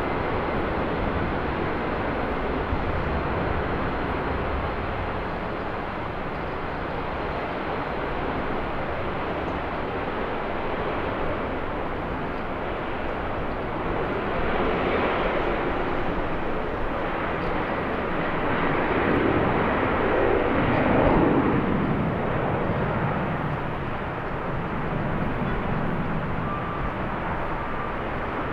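Jet airliner engines passing, their noise swelling to a peak about 20 seconds in and then easing off, over a steady rumble of strong wind on the microphone.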